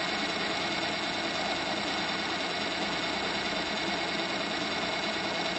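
Rotary degassing unit running steadily, its drive spinning the rotor at the higher speed: an even, unchanging mechanical noise.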